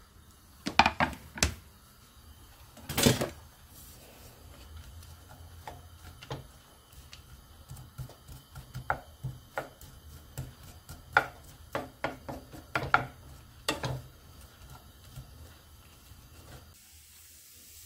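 Wooden spatula knocking and scraping against a frying pan as carrots and onions are stirred, in irregular strokes, the loudest few in the first three seconds.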